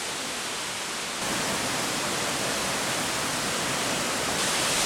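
Peričnik waterfall, a 52-metre fall, rushing in a steady roar of falling water; it jumps louder about a second in.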